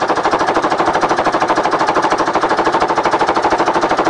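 Husky electric piston air compressor running and pumping up its tank, a fast, even mechanical beat. A knock in it, which the owner says could be a rod, is not yet explained.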